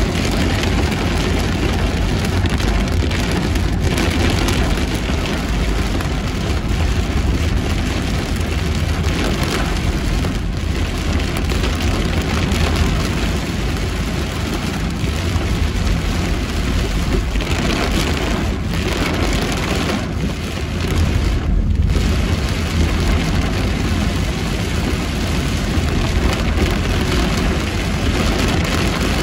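Heavy rain falling on a car being driven: a steady hiss of rain over a low rumble from the car.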